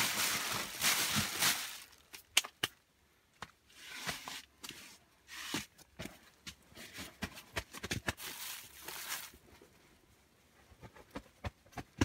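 Plastic bags and wrappers rustling and crinkling as a pile of junk is handled, with scattered clicks and knocks from objects being moved. The rustling is heaviest for the first couple of seconds and comes again briefly later.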